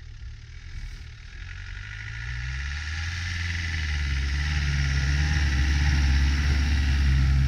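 Land Rover Defender's engine running steadily as the 4x4 drives up a snowy track, with a hiss growing alongside it. Both grow louder as it approaches and passes close.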